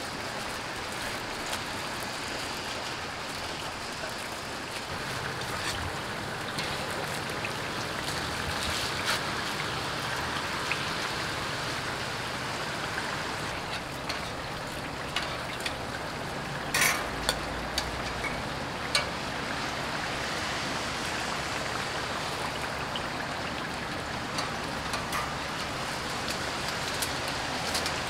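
Hotteok (sweet filled pancakes) frying in oil on a griddle, a steady sizzling hiss, with a few sharp clicks around the middle.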